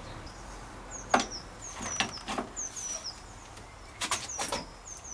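Sharp metallic clicks and knocks, a few at a time, from spanners working the nuts of a threaded-rod headset press, the loudest about a second in and a cluster around four seconds in. Behind them a bird repeats a short falling high chirp about once a second.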